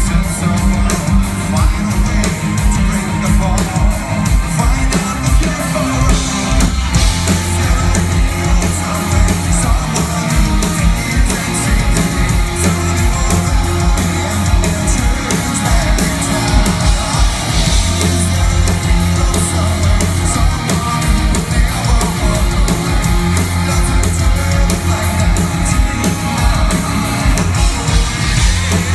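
Rock band playing live: electric guitars, bass and a steady drum beat, with a male lead singer singing over them, heard loud from within the audience.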